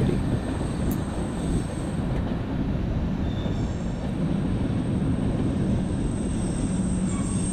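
Freight train cars rolling along the tracks: a steady rumble.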